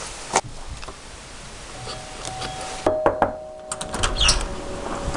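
Knocking on a door, a few sharp knocks, with a steady ringing tone held for a couple of seconds partway through.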